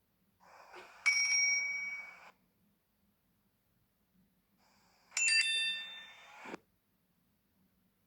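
Two short, bell-like Samsung Galaxy S3 phone tones, about four seconds apart. The first is a soft swell into a bright ring that fades away; the second is several ringing notes together that end in a short click.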